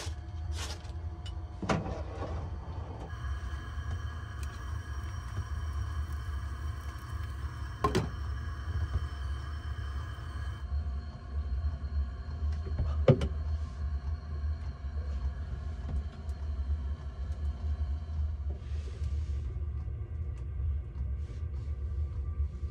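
A steady low rumble, with faint steady hum and a few short knocks about 2, 8 and 13 seconds in.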